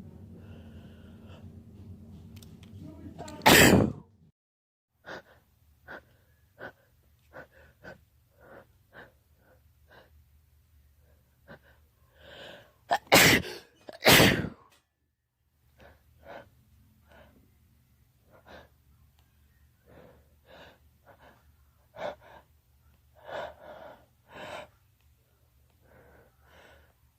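A person sneezing from pollen allergy. There is one loud sneeze a few seconds in, then two loud sneezes about a second apart near the middle. Many short, sharp breaths and gasps come in between and after.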